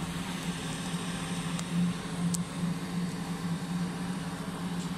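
Welding on a stainless-steel pipe root pass: a steady low hum, wavering slightly, under an even hiss, with a couple of faint clicks.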